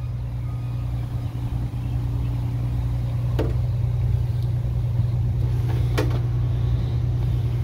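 A steady low engine drone, like a motor idling, with two light knocks about three and a half and six seconds in.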